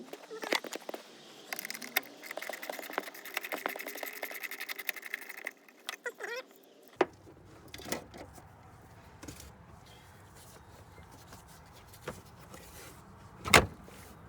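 Ratchet wrench clicking rapidly for several seconds as a 10 mm bolt on the car's interior trim is turned out. Then quieter handling noise and one sharp click near the end.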